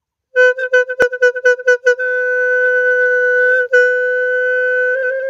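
Khmer horn, a curved black animal horn, blown: a quick run of short blasts, about five a second, then a long steady note on one unchanging pitch, broken once briefly about two-thirds of the way through.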